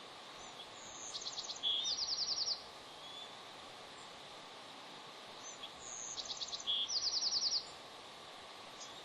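Bald eagles calling at the nest: two bouts of high, rapid chattering notes, one about a second in and one midway, each ending in a louder run of about seven quick notes.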